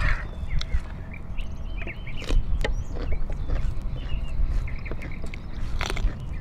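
Close-up chewing and wet lip-smacking of people eating, with short sharp crunches and clicks; a loud crunchy bite near the end, from raw cucumber.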